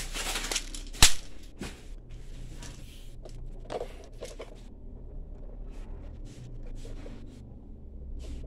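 Plastic clicks and light rattling of metal BBs as a clear hopper magazine full of BBs is handled and fitted to a toy automatic pellet gun, with one sharp click about a second in and a smaller one just after.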